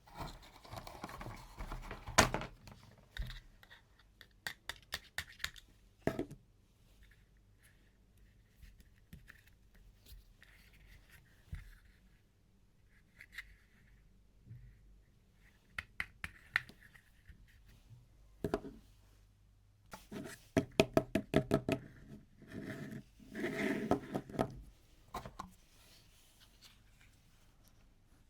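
Hands unboxing toys: scattered clicks and taps on plastic and cardboard packaging, separated by quiet pauses. About three quarters of the way in come a quick run of clicks and then a stretch of rustling and scraping.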